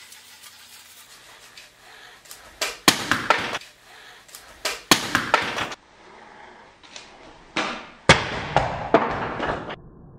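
Battery-powered spinning cleansing brush scrubbing body-wash lather on skin, in several loud spattering, swishing bursts about a second each. The brush head flings wet suds about.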